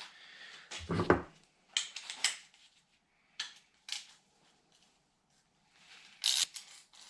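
Hand tools clinking and tapping on metal while a bracket bolt on a Morris Marina's 1275cc engine is undone: a few scattered sharp clicks, with a louder clatter a little after six seconds in.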